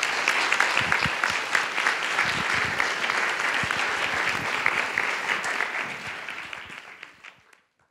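Audience applauding with many hands clapping, fading out over the last second or two.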